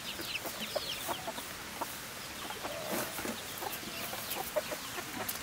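Domestic chickens clucking in short, scattered notes, mixed with small clicks and rustles.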